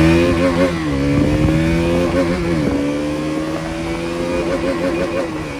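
KTM Duke 200 motorcycle accelerating hard, its single-cylinder engine rising in pitch and dropping at gear changes under a second in and again near three seconds, then pulling on more steadily.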